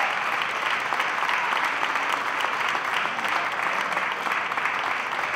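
Crowd applauding steadily, a dense patter of many hands clapping.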